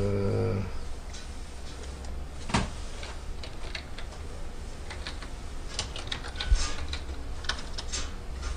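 Typing on a computer keyboard: scattered, irregular keystrokes over a steady low hum. A held chanted note stops just under a second in.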